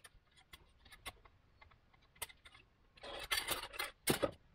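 Plastic model kit parts being snipped off the sprue with sprue cutters: a series of small sharp clicks and snaps. About three seconds in, a louder rattling scrape of the plastic sprue frame being handled, then one more loud snap or knock.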